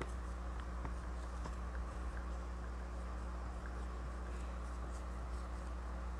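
Dry-erase marker writing on a small whiteboard: faint scratchy strokes and small ticks as the letters and root sign are drawn, over a steady low electrical hum.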